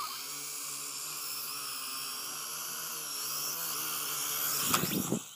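Small toy quadcopter drone's electric motors and propellers buzzing steadily as it flies in, growing louder toward the end, with a brief louder rush just before the sound cuts off abruptly.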